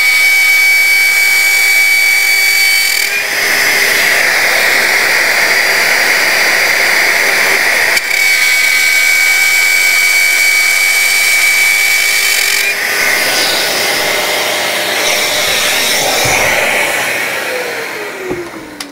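Handheld plunge router running at full speed while routing a slot in a sheet-board jig along a guide rail: a steady high whine alternating with a rougher cutting noise. Near the end it is switched off and the motor winds down with a falling pitch.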